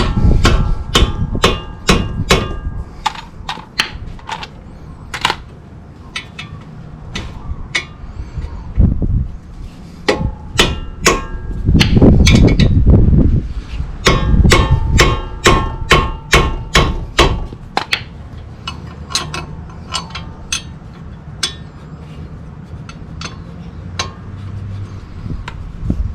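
Irregular metal taps and clinks with a short ring, from hand tools working on car front-brake parts, with a few heavier dull thuds among them.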